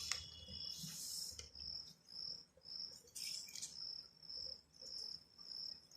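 A cricket chirping steadily, about two chirps a second, with two faint brief rustles about a second in and again just past three seconds.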